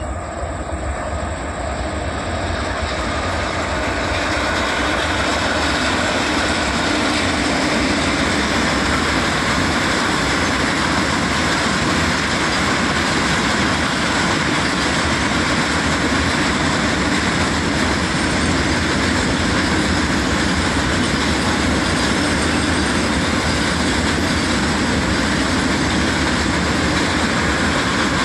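Freight train of BTPN bogie tank wagons rolling past, the wheels running steadily over the rails. It builds in loudness over the first few seconds as the train arrives, then holds steady.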